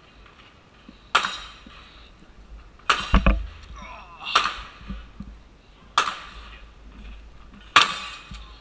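Gunshots from firearms on a nearby range, about seven sharp reports at irregular intervals, three of them in quick succession about three seconds in, each with a short echoing tail.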